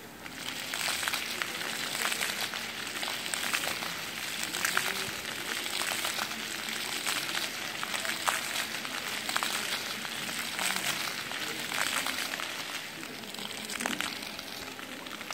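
Floor-fountain water jets spraying and splattering onto wet paving stones: a steady spray with many small crackling splashes.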